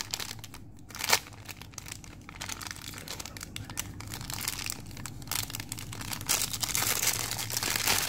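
Clear plastic bag being torn open and crinkled by hand, the plastic tough to rip. A sharp rip comes about a second in, and the crinkling grows louder near the end.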